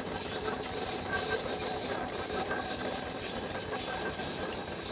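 Centrifugal spinning machine for concrete pipes and poles running, its steel mould turning on the drive wheels with a steady, rapid mechanical rattle over a motor hum.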